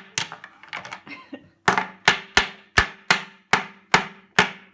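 A hammer knocking repeatedly in sharp, even blows, about three a second, with a short run of lighter taps about a second in.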